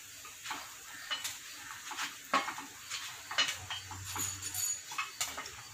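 Light clicks and knocks as cooked paniyaram are lifted out of the wells of a cast-iron paniyaram pan and set on a plate. About a dozen short, scattered taps.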